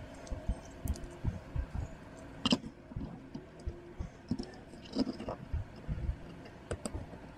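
Small plastic model-kit parts being handled and pressed together: irregular soft knocks and rubbing, with a sharp plastic click about two and a half seconds in and a few more clicks later on.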